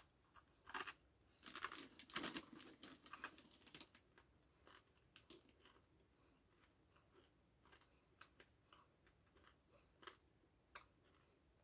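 Crunching and chewing of a hand-cooked potato crisp, a cluster of crisp crunches in the first few seconds thinning to faint, scattered crunches.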